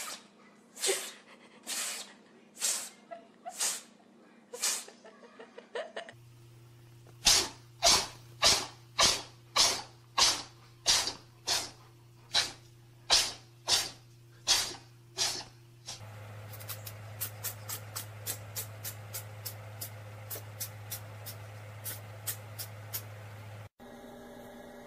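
A cat making short, breathy, sneeze-like bursts over and over, about one a second. Then, with a steady hum beneath, the bursts come faster, and a quicker run of fainter ticks follows.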